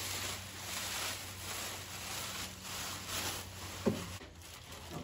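Plastic wrapping rustling and crinkling in uneven swells as it is pulled up off a machine, with a single knock about four seconds in.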